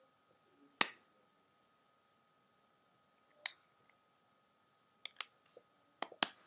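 Small, sharp clicks and taps from an iPhone 5C and the tools on it as it is put back together: one about a second in, another about three and a half seconds in, then two quick pairs near the end.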